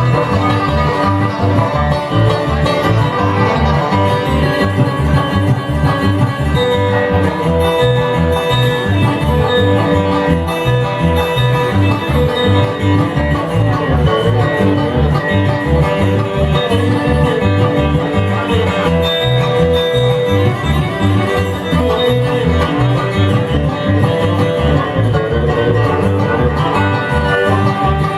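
Bluegrass string band playing an instrumental passage live, plucked strings over a steady driving beat.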